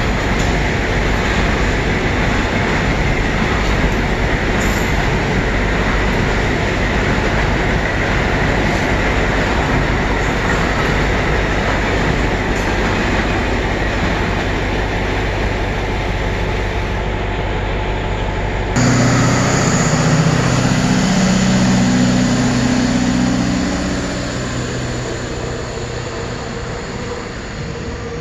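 Freight train of container wagons rolling past: a steady rumble of wheels on rail with a faint steady whine. About two-thirds of the way through, the sound changes abruptly to a louder, lower hum with several steady tones, which fades away toward the end.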